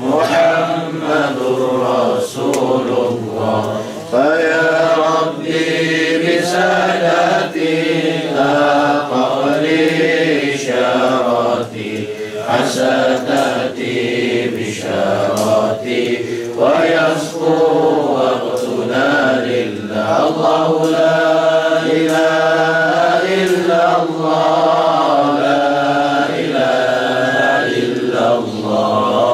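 Melodic vocal chanting, long held notes that glide slowly up and down, typical of Islamic devotional recitation.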